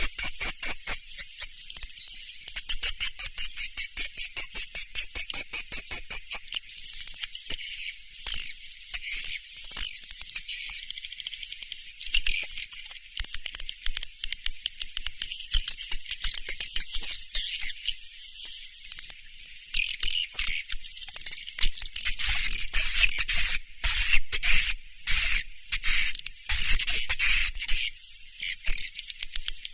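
Swiftlets twittering in a dense, continuous run of rapid high chirps and trills, the lure call recording used to draw swiftlets into a swiftlet house. A few short breaks in the chirping come near the end.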